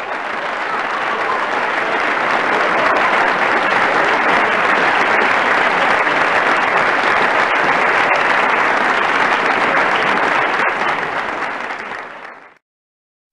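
Crowd applause, a dense steady patter of many hands clapping, that swells in and fades out about twelve seconds in.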